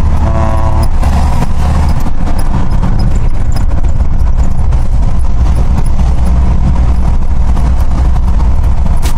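Cabin noise of a 2002 Hyundai Galloper II on the move: a steady low engine and road drone heard from inside the vehicle.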